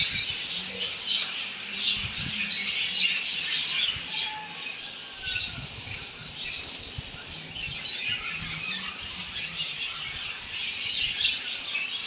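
Many caged small parrots chirping and squawking at once, a continuous busy chatter with a few faint low knocks beneath it.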